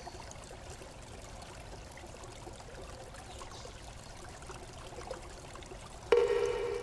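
Faint steady hiss, then near the end a cartoon landing sound effect: a pitched tone with overtones that starts suddenly and fades away as the block touches down.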